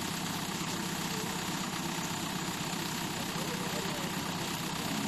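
JCB backhoe loader's diesel engine idling steadily.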